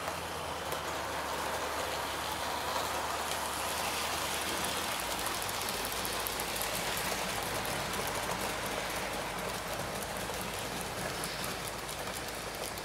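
HO-scale model freight train rolling over the layout track: a steady hiss of small wheels on the rails, with fine rapid clicking in the later part.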